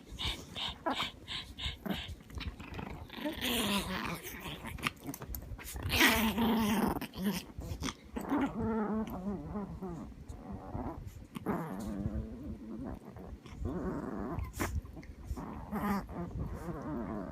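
Two small dogs, a toy poodle and a shih tzu-Yorkie mix, play-growling at each other in a run of drawn-out, wavering growls.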